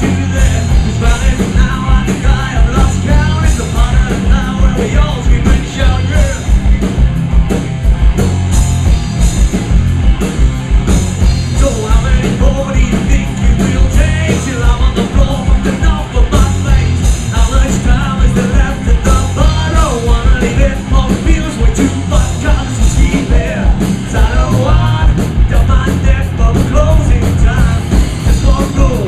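A rock band playing a song with a singer over a fast, driving drum beat, loud and continuous.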